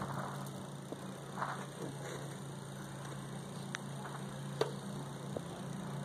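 A steady low hum with a few faint, sharp clicks and soft brief rustles.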